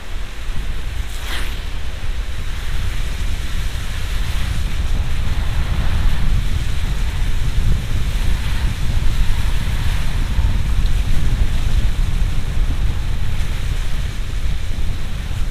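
A car driving on a wet road in the rain, heard from inside the cabin: a steady low rumble of road and tyre noise under a hiss of rain and spray. A brief swish comes about a second in.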